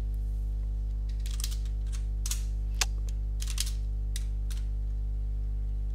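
Computer keyboard keystrokes: a few irregular clicks, one noticeably louder, over a steady low electrical hum.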